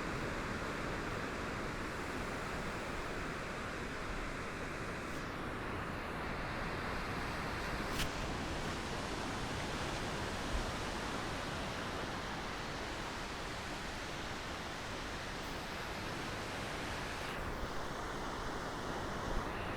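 Gentle ocean waves washing against the shore: a steady wash of surf, with one brief sharp click about eight seconds in.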